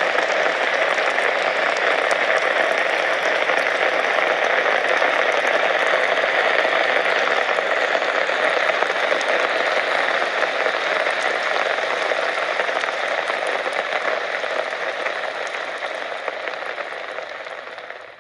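Steady rain falling: an even hiss with scattered drop ticks, fading out over the last few seconds.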